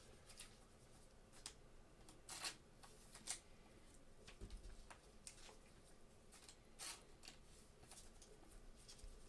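Faint rustling and light clicks of trading cards being sorted and set down by gloved hands, with a few sharper snaps scattered through.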